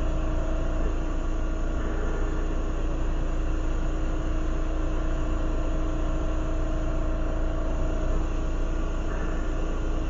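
Lampworking glass torch burning steadily: a constant rushing hiss with a steady low hum underneath.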